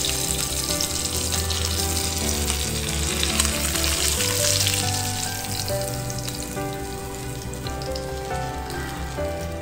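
Pomfret fish sizzling in shallow hot oil on an iron dosa griddle (tawa) as the fried pieces are lifted out. The sizzle eases off somewhat after about five seconds.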